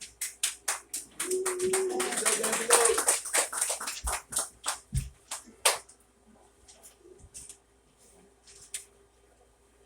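Congregation clapping: separate claps that thicken into a burst of applause for a couple of seconds, then thin out and stop about six seconds in.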